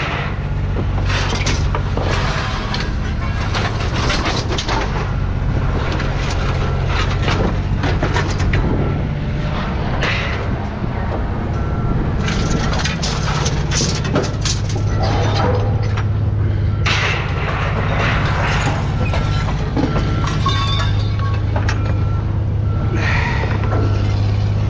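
Scrap metal pieces clanging and crashing as they are thrown off a truck onto a pile, again and again at irregular intervals, over a steady low engine hum.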